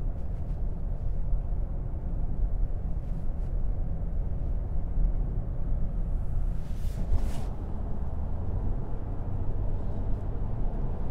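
Inside the cabin of a 2018 Toyota Camry XSE V6 under light throttle, accelerating gently: a steady low rumble of engine and tyre noise. A brief rushing noise rises and falls about seven seconds in.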